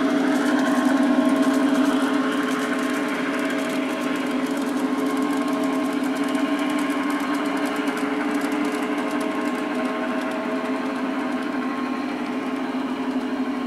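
Two LGB F7 G-scale model diesel locomotives running with a freight train: a steady electric whirring hum, a little louder for the first couple of seconds.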